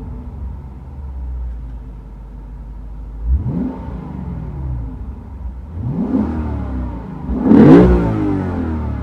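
2015 Lexus RC F's 5.0-litre V8 idling and revved three times, each rev rising and falling back, the third higher and loudest. No buzzing rattle above 2500 rpm now that the fuel pumps are replaced and the engine software is updated.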